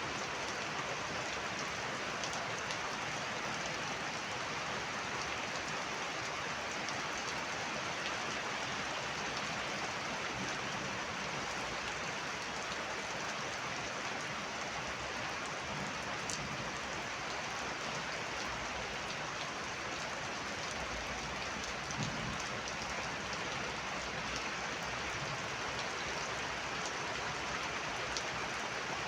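Heavy rain pouring steadily: a dense, even hiss with scattered sharper drop hits.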